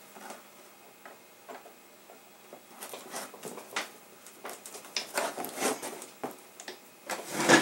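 Scattered light metal clicks and knocks from a Chinese Type 56 SKS rifle being handled and turned over while its trigger group is worked on for field stripping. The clicks come more often after about three seconds, with a louder knock near the end.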